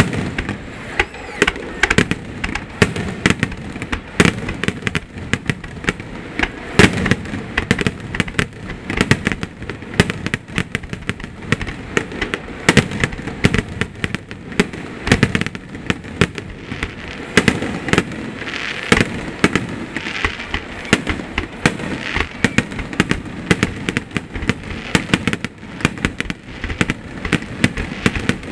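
Aerial fireworks shells bursting in a rapid, irregular barrage: many sharp bangs, several a second, over a continuous noisy wash.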